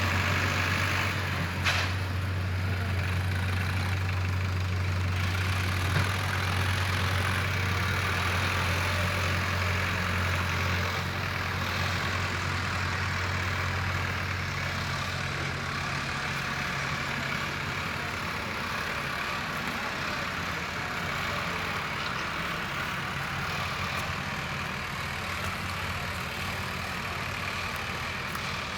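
Excavator's diesel engine running steadily with a low hum that weakens after about ten seconds. A sharp knock comes about two seconds in and another about six seconds in.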